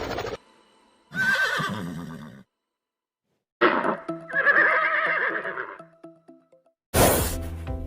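Animal calls, wavering in pitch, in three separate short clips spliced together with abrupt cuts to dead silence between them.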